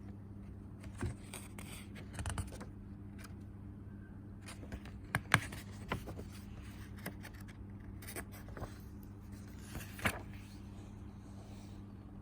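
Scattered soft clicks and scrapes from handling a picture book, with sharper clicks about five seconds in and again about ten seconds in, over a steady low electrical hum.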